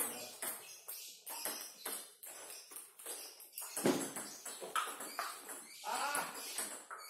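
Table tennis rally: the celluloid ball clicking off bats and table in quick succession, with a heavier thump about four seconds in.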